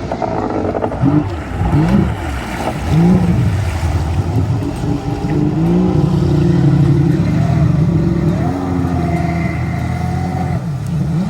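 Jet ski engine revving, its pitch rising and falling several times, then holding steady at speed for several seconds before easing off near the end.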